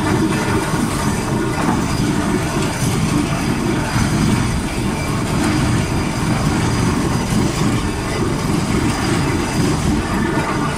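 Borehole drilling rig running steadily: a loud, continuous, deep mechanical rumble with a fast, rough texture that does not change.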